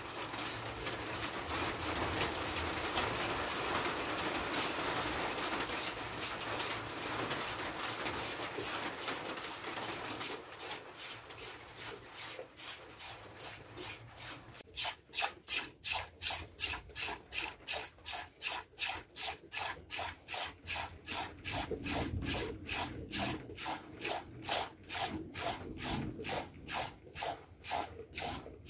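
Hand-milking a goat: rhythmic squirts of milk hissing into a stainless steel bowl that already holds milk, at about two strokes a second in the second half. A steady hiss comes before the strokes become clear, about ten seconds in.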